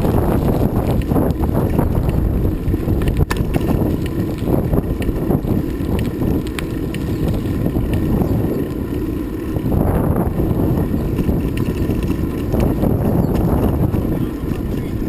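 Strong wind buffeting the microphone, a heavy gusting rumble that rises and falls.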